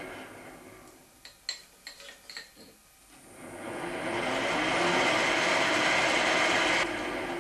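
A 1972 Weiler Matador lathe spindle turning a 4 mm twist drill at 400 rpm, drilling a bolt circle in a steel puck. It runs down at the start, a few light metallic clicks follow, then it runs steadily again for about three seconds before its sound drops off sharply near the end.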